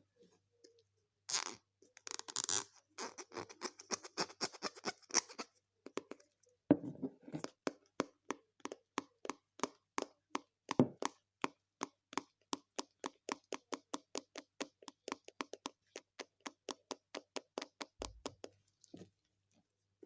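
Homemade slime being squeezed and poked by hand, giving a quick run of small sticky pops and clicks, about four a second, after a couple of longer squishes near the start.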